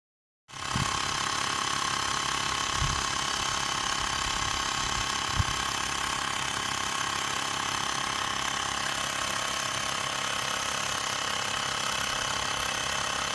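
Xiaomi Mi Portable Electric Air Compressor running steadily as it inflates a car tyre, a fast mechanical rattle with a high steady whine. It starts abruptly about half a second in. A few low knocks come in the first few seconds, the sharpest about five seconds in.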